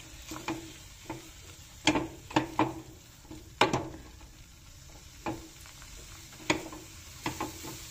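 Silicone spatula stirring thick semolina upma in a stainless steel pan, with about ten irregular soft knocks and scrapes against the pan over a faint sizzle.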